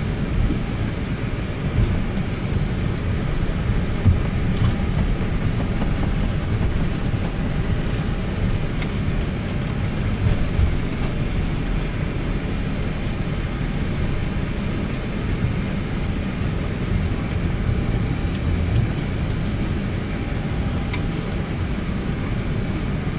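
Steady low rumble inside an Airbus A320 cockpit as the airliner taxis after landing, with a few faint ticks.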